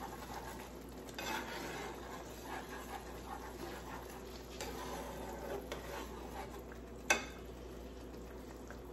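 A metal spoon stirring boiling curry sauce in a stainless steel skillet: faint scraping against the pan over a low bubbling hiss, with a single sharp tap about seven seconds in.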